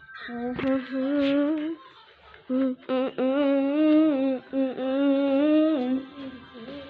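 A person humming a tune in long held notes with a slightly wavering pitch, breaking off once for a moment about two seconds in.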